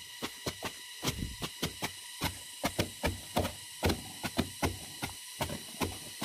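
A small metal scoop digging through a heap of chopped bamboo shoot on a woven bamboo tray, making irregular clacks and rustles about four times a second. A faint steady high whine runs underneath.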